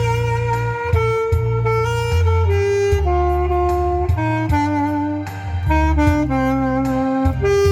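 Saxophone playing a slow melody of held notes over a backing track with a steady bass. The line steps down over the first few seconds and climbs back near the end.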